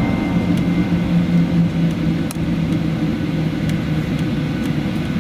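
Steady cabin noise inside a Boeing 737-800 on the ground: a low drone with a hum that sinks slightly in pitch, over an even rush of air, with a few faint clicks.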